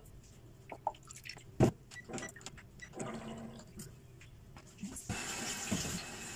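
A few light knocks and clinks of kitchen utensils, one louder than the rest, then water running steadily for about two seconds near the end, as when liquid is poured or run into a measuring cup for bread dough.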